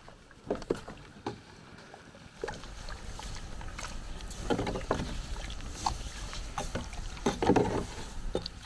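Flat metal blade stirring and scraping a dark acorn-husk brew in a square sheet-metal can over a fire: liquid sloshing with knocks of metal on metal. Scattered clicks at first, then steadier stirring from a couple of seconds in.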